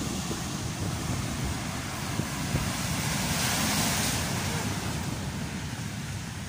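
Rough storm surf breaking and washing against a boulder seawall, with wind buffeting the microphone; the hiss of the surf swells about three to four seconds in.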